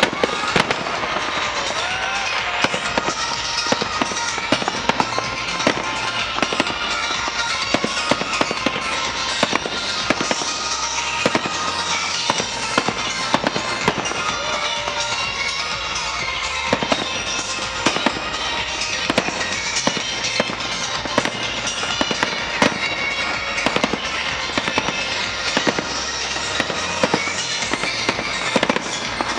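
Aerial fireworks shells bursting one after another, many sharp bangs throughout, over loud show music.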